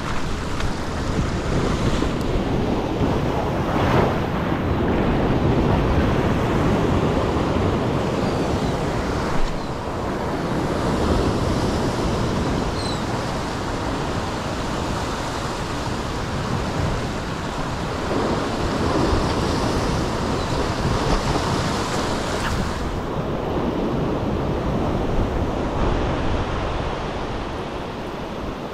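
Ocean surf surging and washing against a rock ledge, the wash swelling and easing every several seconds, with wind buffeting the microphone.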